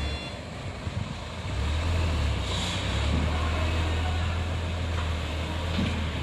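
Concrete mixer truck's diesel engine running with a low steady drone as the truck reverses slowly, getting louder about a second and a half in.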